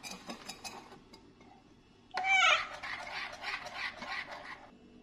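A spoon clinks a few times against a ceramic bowl of batter, then about two seconds in a baby macaque gives a loud high call, followed by a run of quick, rough calls that stops just before the end.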